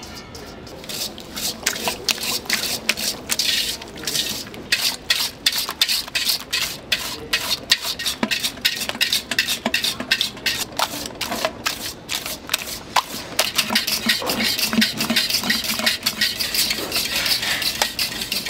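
Wire whisk beating eggs by hand in a large stainless steel bowl for castella sponge batter: quick, rhythmic wet strokes with the wires clicking and scraping against the metal, starting about a second in.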